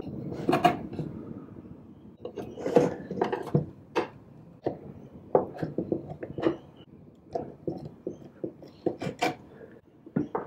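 A screwdriver clicking and scraping on the small metal hinge screws of a lacquered jewellery box, with irregular light knocks of wood and metal as the lid is handled and worked free.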